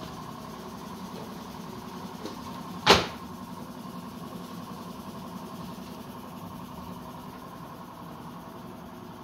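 Steady hum of workshop machinery running, with one sharp knock about three seconds in and a few faint clicks as cut melamine boards are handled on the CNC router bed.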